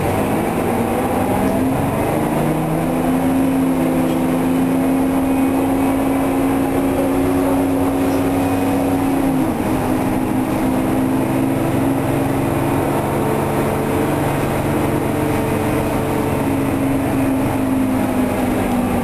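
Detroit Diesel 6V92TA two-stroke turbo V6 diesel of a 1990 Orion I bus heard from inside the cabin, pulling the bus along under power. The engine note climbs at the start, dips briefly about halfway through as the ZF automatic transmission shifts, then holds and climbs again before falling off near the end.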